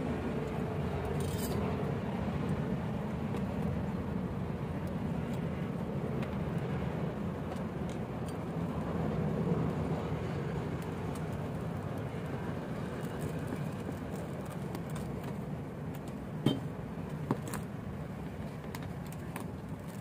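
Steady low background rumble, with two short sharp knocks a few seconds before the end.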